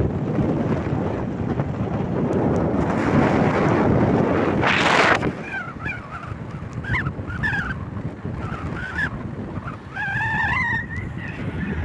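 Wind buffeting the microphone, a loud rumble for about five seconds that ends in a brief rushing burst. After that it drops, and a run of short rising and falling whistled calls follows.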